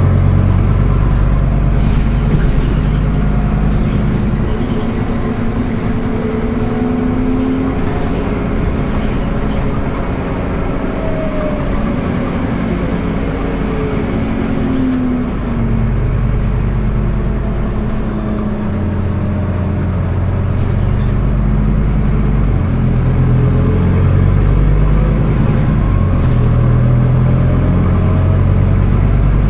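Scania N320UB city bus's diesel engine and ZF automatic gearbox heard from inside the bus while driving. The engine note and a whine rise and fall several times as it accelerates, shifts and slows, with the low engine sound picking up strongly about halfway through.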